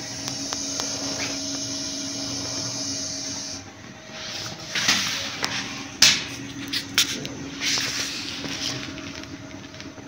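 Toy remote-control spray car's small electric motors whirring steadily with a hiss. The whir drops away about three and a half seconds in, giving way to short scuffs and sharp knocks, and picks up again near the end.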